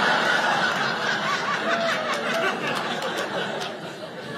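Audience laughing in response to a punchline, loudest at first and dying away.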